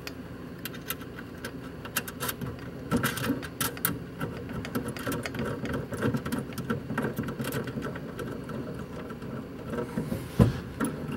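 Quick, irregular small metallic clicks and rattles of a lock washer and nut being fitted onto a mounting bolt of a power cowl vent under a car's dashboard, with one louder knock near the end.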